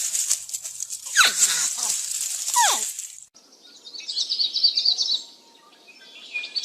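Two short wildlife clips. First, over a loud hiss, two calls sweep steeply down in pitch. Then a bird sings quick, high chirping trills.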